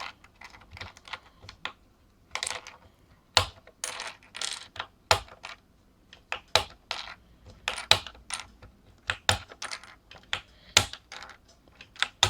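Plastic keycaps being levered off a Hi-Tek Space Invader keyboard by finger: irregular sharp clicks and short clacks, about one or two a second, some with a brief clatter.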